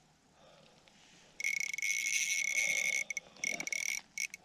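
Fishing reel's drag buzzing in bursts as a large hooked splake pulls line. A long steady buzz starts about a second and a half in, followed by shorter broken bursts.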